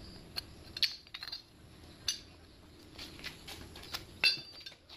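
Scattered light clinks and knocks of a cast aluminium wheel part being handled and set down on a concrete floor, the loudest knock just after four seconds in.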